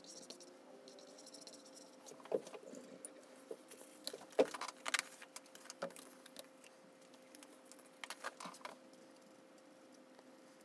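Sped-up scraping of a plastic card spreading acrylic paint across illustration board in the first second or so, then scattered sharp clicks and taps, over a faint steady hum.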